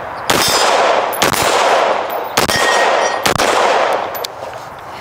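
Four shots from an AR-15-style 5.56/.223 rifle, fired about a second apart, each followed by a long rolling echo.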